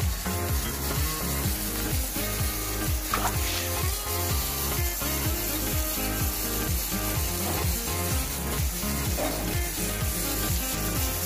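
Background music with a steady beat, over a steady hiss of running water.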